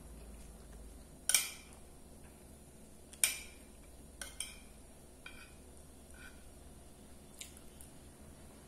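Metal spoon clinking and scraping against a plate as food is scooped up: two sharp clinks about two seconds apart, then a few lighter taps.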